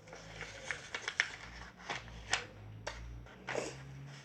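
A sheet of paper being folded and creased by hand into a paper airplane: rustling with about half a dozen short, sharp crackles.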